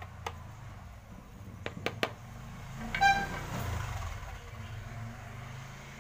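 A few light clicks of a garden trowel against soil and a plastic plant pot. About three seconds in there is a short, high-pitched horn toot, the loudest sound, followed by a low rumble that fades over a second or so.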